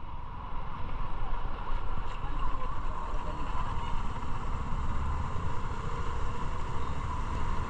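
Motorcycle engine running steadily at low speed in slow, congested traffic, heard through a helmet-mounted camera.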